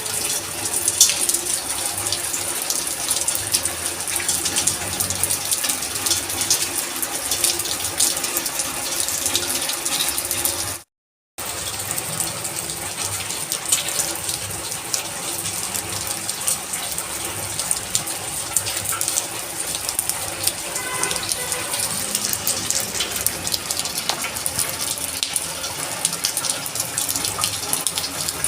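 Steady heavy rain, with many close drops striking hard surfaces. The sound cuts out completely for about half a second roughly a third of the way in.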